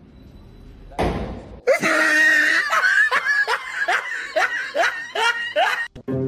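A person laughing in a quick run of short bursts, about three a second, each rising in pitch, lasting about four seconds after a brief rush of noise about a second in.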